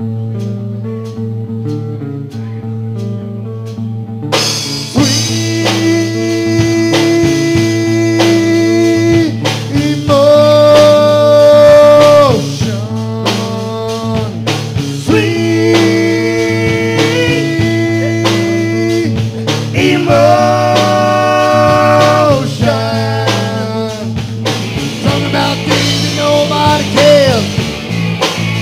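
Live blues-rock band playing an instrumental passage: an electric guitar picks a repeating figure alone for the first four seconds, then the drums and bass come in and a lead guitar holds long, bending notes.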